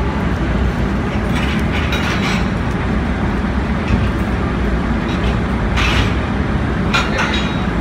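Quayside background noise: a steady low rumble with a few short hissing sounds, about two seconds in and again near the end.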